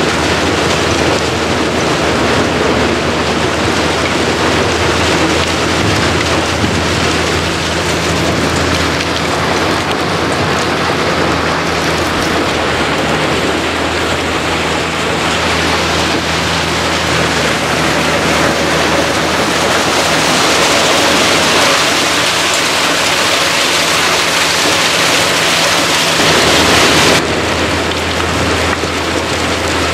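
Rexworks Maxigrind 460G horizontal grinder grinding pallets: its Cat 3406 turbo diesel runs steadily under load with a low hum, under a dense hiss and patter of wood chips pouring off the discharge conveyor. Near the end the hum drops out for about a second while the hiss swells.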